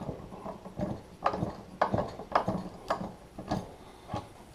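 Hand ratchet clicking in short bursts every half second or so, spinning the piston retaining nut off a hydraulic cylinder rod once the nut has been broken loose.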